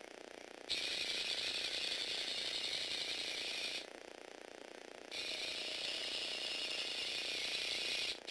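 Small Lego Technic electric motor and plastic gear train whirring as the mini robot moves, in two stretches of about three seconds each. Between them, about four to five seconds in, the high whirr drops away and only a quieter hum remains.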